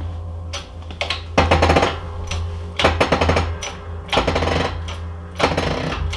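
Hydraulic bottle-jack shop press pumped by hand through a steel pipe slipped over its handle: repeated metallic clanks with brief ringing, about one a second, as the press pushes the bull gear off a South Bend Heavy 10 lathe spindle, a tight press fit that has just broken loose.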